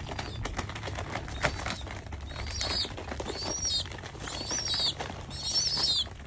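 A young pigeon squeaking: short, high-pitched begging calls about once a second, starting about two seconds in and getting louder.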